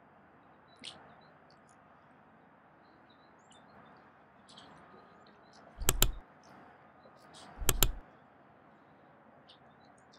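Faint, short, high bird chirps scattered over a steady outdoor hiss. Twice, about six and about eight seconds in, a loud sharp double click cuts in.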